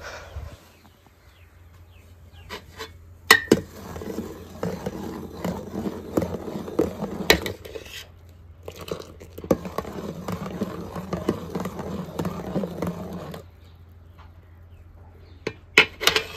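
Steel ladle stirring and scooping liquid in a large metal pot, with a run of stirring noise and sharp clinks of ladle against metal. It pauses briefly about halfway, stops a few seconds before the end, and a few more clinks follow near the end.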